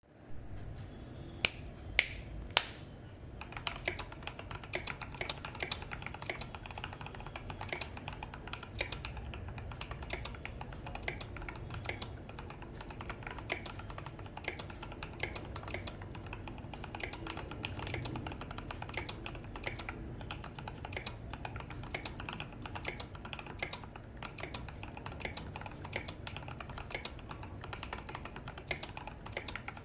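Typing on an IDOBAO ID80 mechanical keyboard with Durock Koala tactile switches on 67 g springs: a steady run of quick key presses. It opens with three louder sharp clicks within the first three seconds.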